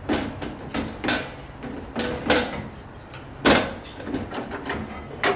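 Irregular clunks and knocks of hard parts being handled at the front of a Ford Ranger while the intercooler is worked loose for removal. The loudest knock comes about three and a half seconds in.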